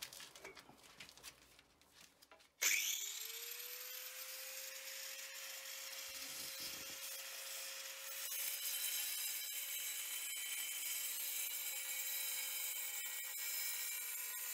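Angle grinder with a dry-cut diamond disc switching on about two and a half seconds in, its whine rising quickly to a steady pitch, then from about eight seconds in growing louder and rougher as the disc cuts into a porcelain tile.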